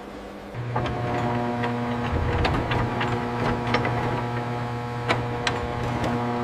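A steady mechanical hum starts about half a second in and keeps going, with scattered sharp metallic clicks and ticks over it.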